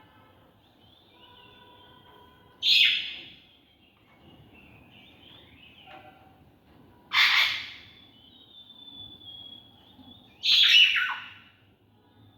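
Caged macaw squawking: three loud, harsh calls a few seconds apart, with fainter chirps and whistles from birds in between.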